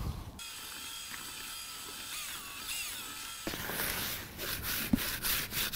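Dry feeder groundbait being mixed by hand with water, a grainy rapid crunching and rustling that starts about three and a half seconds in; before that only a faint hiss with thin high tones.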